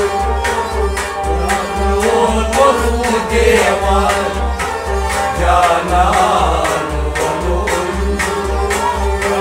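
Kashmiri Sufi folk music played by an ensemble. A hand drum keeps a steady beat of about two low strokes a second under sustained melody instruments.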